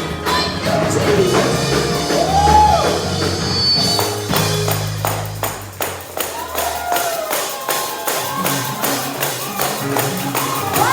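Upbeat gospel praise music with a fast, steady percussion beat and a bass line that drops out about halfway through.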